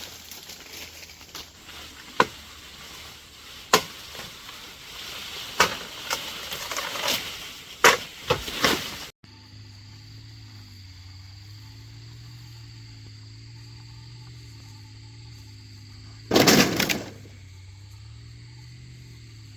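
A series of sharp knocks at irregular intervals, one to two seconds apart, typical of a blade chopping wood. About nine seconds in the sound changes to a steady low hum, with one brief loud rush of noise near the end.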